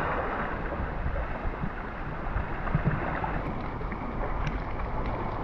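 Sea water sloshing and churning close to the microphone: a steady rushing noise.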